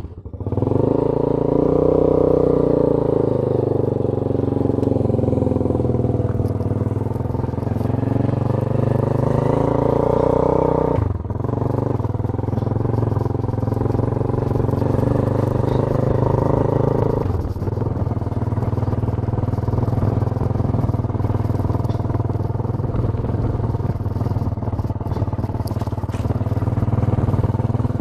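Motorcycle engine running steadily under way, its note dipping sharply and picking up again twice, about eleven and seventeen seconds in.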